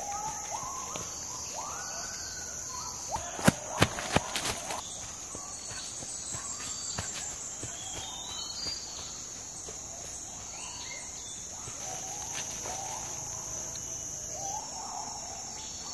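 Forest ambience: insects droning steadily at a high pitch, with rising and falling animal calls scattered throughout. A few sharp, loud knocks come close together about three and a half to four and a half seconds in.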